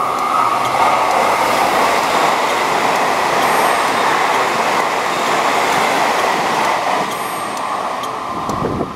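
A TEMU2000 Puyuma tilting express train running through the station at speed without stopping: a loud, steady rush of wheels on rail and air that fades near the end as it draws away.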